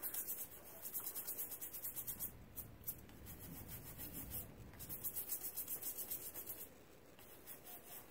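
Soft rhythmic scrubbing strokes, about four or five a second, as a wet baby doll is rubbed clean with soapy water. The scrubbing stops near the end.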